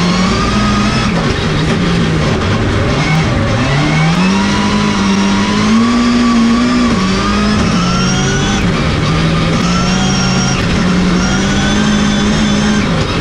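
Rallycross car heard from inside its own cockpit, driving hard on track: a loud steady drive note whose pitch drops about three seconds in and climbs again, with high whines that glide upward each time it accelerates.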